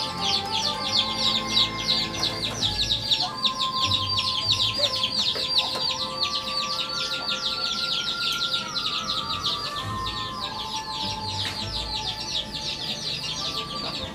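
A rooster clucking a few times over a steady, fast, high-pitched chirping that repeats many times a second, with sustained tones underneath that change pitch every few seconds.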